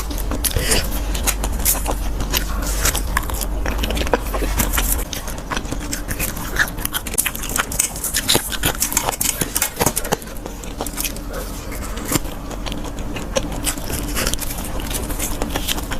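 Close-miked eating sounds: irregular crunching, crackling and small scraping clicks as food is bitten and chewed.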